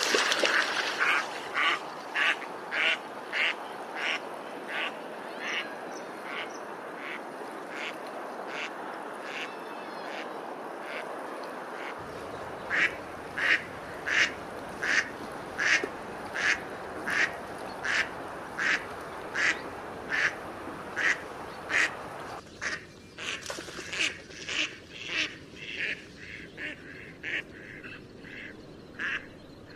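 Ducks quacking over and over in a very even rhythm, about one and a half to two quacks a second, over steady background noise. A little after twenty seconds in, the background noise drops away and the quacks come quicker and fainter.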